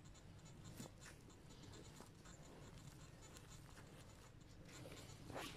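Gloved hands scraping and sweeping dry, stony soil into a hole to fill it in: a faint scratching with a few light clicks of pebbles, the loudest near the end.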